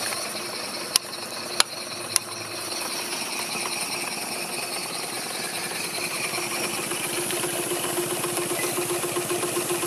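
Small model steam engines running at speed, a rapid even beat with steam hissing. A steady hum comes in about halfway, and there are three sharp clicks in the first couple of seconds.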